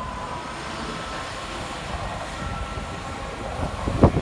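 Networker Turbo diesel multiple unit running past, a steady rumble with a few high whining tones over it. A sharp thump near the end.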